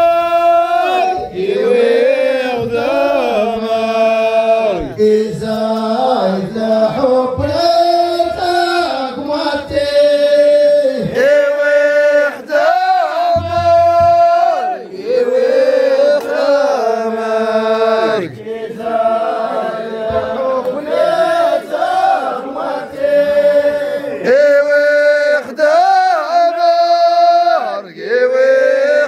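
A group of men chanting together in long sung phrases that rise and fall and break every second or two: a Moroccan folk troupe singing at a wedding.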